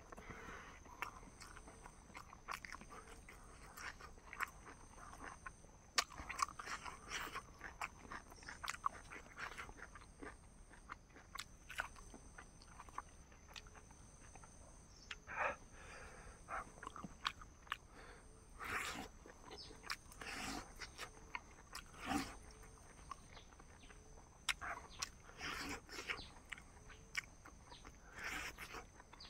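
Person eating a chicken and rice meal close to the microphone: irregular chewing and biting sounds with small sharp clicks.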